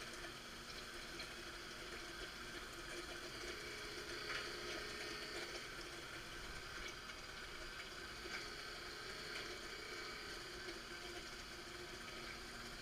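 Marunaka MG-500 straight knife grinder on a slow lapping pass: steady watery hiss of the coolant pump and coolant running over the blade, with the fine lapping head lightly touching and honing the knife edge.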